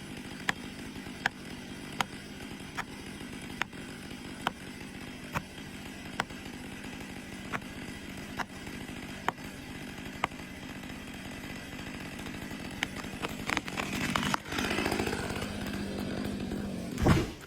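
Chainsaw running steadily, with a sharp tick a little more than once a second. Near the end the sound grows rougher and louder, peaking in a loud burst just before it stops.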